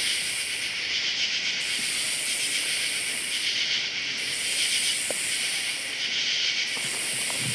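Night insect chorus: a shrill high buzzing that swells in repeated bursts about every two and a half seconds, over a steady fainter shrill background.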